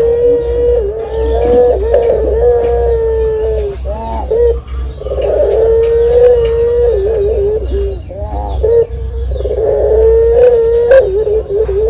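Ringneck dove (puter) giving long, drawn-out high coos: three held notes a few seconds apart, each followed by a few short rising-and-falling notes.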